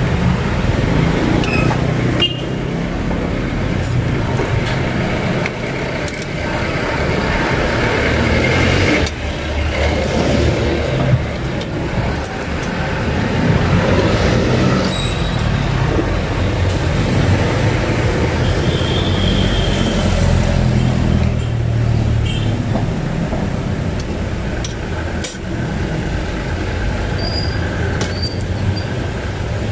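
Steady street traffic with vehicle engines, over fishballs sizzling as they deep-fry in a wok of oil.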